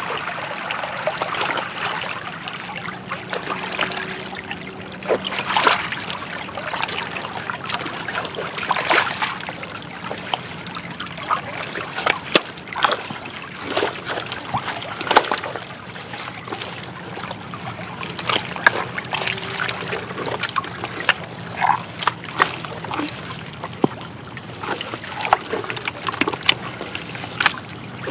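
Thick wet mudflat mud squelching, with irregular sharp wet pops, smacks and sucking sounds as a mud-covered body pushes and drags through it.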